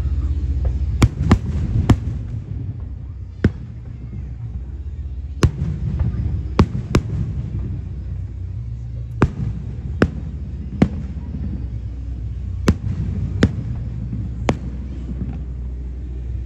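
Aerial firework shells bursting overhead, about a dozen sharp bangs at irregular intervals, some in quick pairs, over a steady low rumble.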